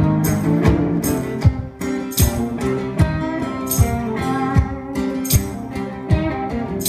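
Acoustic guitar playing an instrumental blues passage, with a steady low thump on the beat about every three-quarters of a second.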